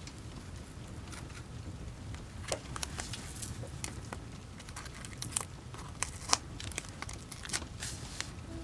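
Paper and masking tape being handled on a journal page: scattered crinkles and small sharp clicks at an irregular pace.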